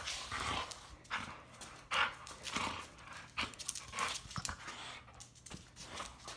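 A pit bull-type dog tugging and shaking a rope toy, breathing in irregular short, noisy puffs every half second to a second.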